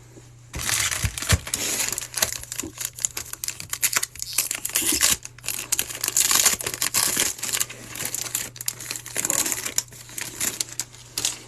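Foil wrapper of a trading card pack crinkling and tearing as it is ripped open and handled, in a dense run of crackles.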